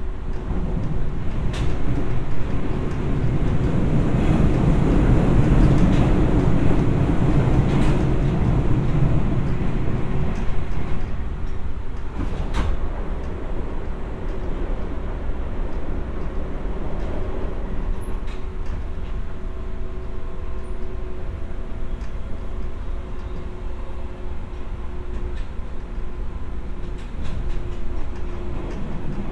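Running sound of a JR 201 series electric train heard from inside the carriage: wheels on rail under a steady hum. It is loudest for the first ten seconds or so, with a few sharp clicks.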